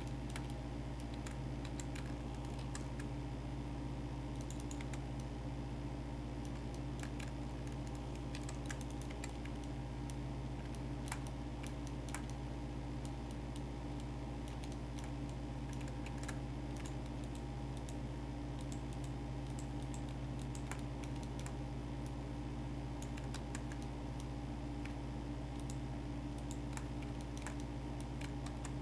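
Computer keyboard keys and mouse buttons clicking irregularly as someone works at a computer, over a steady low electrical hum.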